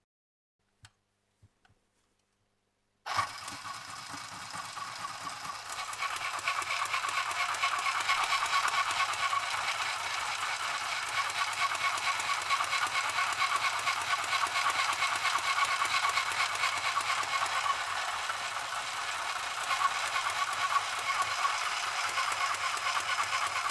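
Mini sewing machine stitching through paper with its thread tension just loosened: a fast, steady needle rattle that starts suddenly about three seconds in, after a couple of faint clicks, and grows louder a few seconds later.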